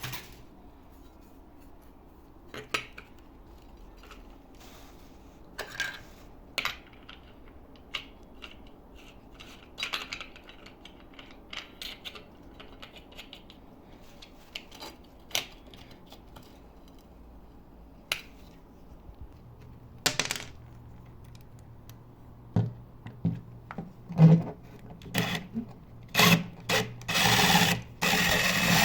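Metal tools being handled, with scattered clicks and clinks. About two-thirds of the way through a low motor hum starts, and near the end a loud, continuous grinding noise begins, typical of steel held against an abrasive wheel.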